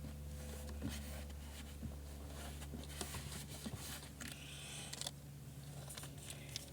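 Faint rubbing and light knocks of a cloth wiping down the plastic tub of a portable foldable washing machine to dry it, over a low steady hum.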